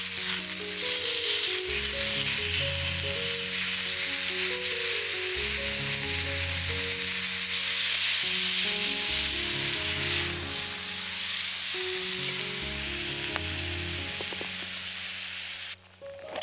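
Food sizzling as it fries in a hot pan, with background music under it. The sizzle cuts off suddenly near the end.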